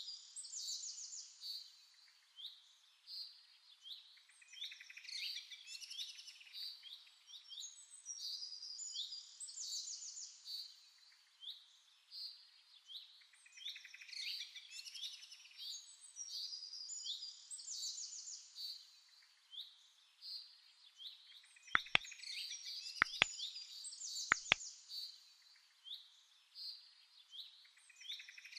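Several songbirds singing together in fast trills and short chirps. About two-thirds of the way through come three sharp double clicks, roughly a second apart.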